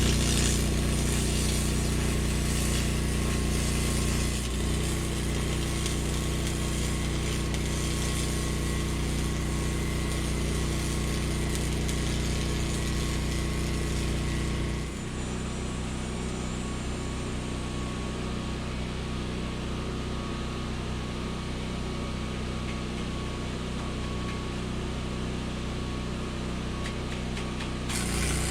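Honda 6,500-watt generator running steadily under the load of a Lincoln AC-225 stick welder, with the crackle of an arc being struck and run on a 6013 rod. The arc stops about halfway through, leaving the generator running alone, and starts again near the end.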